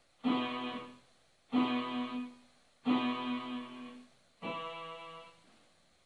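Electronic keyboard playing a slow melody: four separate notes, each struck sharply and dying away before the next, the first three on the same pitch and the fourth on a different one.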